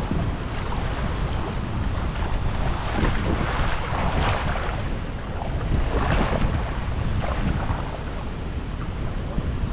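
Shallow river water splashing and sloshing in irregular surges as a hooked fish thrashes at the surface and the angler wades, with wind rumbling on the microphone.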